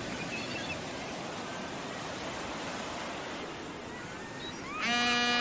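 Ocean surf ambience, a steady wash of waves, with a few faint bird calls early on. Near the end a loud electronic buzzing tone comes in with a quick upward slide and holds one steady pitch: a computer sound effect as the on-screen login button is clicked.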